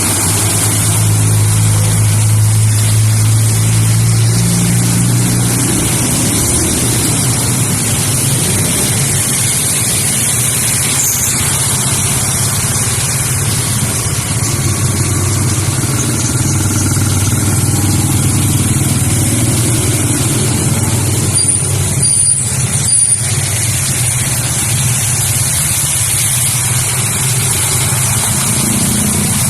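Road traffic driving through a rain-flooded street: vehicle engines running over a steady hiss of tyres and spraying water. A nearby engine hum is strongest in the first few seconds, and a few short clicks come about three quarters of the way in.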